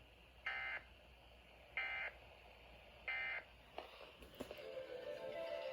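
Three short electronic beeps about 1.3 seconds apart, each a multi-tone chirp. They are followed by a few faint clicks and a quiet low tone that builds slightly near the end.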